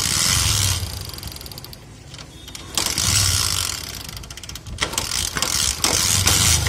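Motorcycle engine turned over three times with its spark plug removed: it spins with a fast clicking rattle and a hiss but never fires, since there is no spark or compression.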